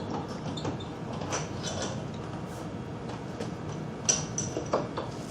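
Short clicks and knocks from a skate-sharpening jig and its clamp being handled and set in place, over steady background noise. The sharpest knocks come about four seconds in and again just before five.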